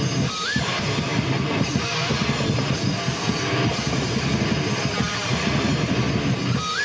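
Live rock band playing loudly: electric guitar over a drum kit with cymbals struck throughout. A short rising guitar note sounds near the start and again near the end.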